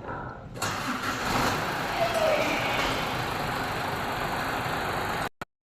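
Hino 700 truck's E13C inline-six diesel engine running, now starting after a crank-only, no-start fault was fixed. It comes in abruptly about half a second in and cuts off suddenly near the end.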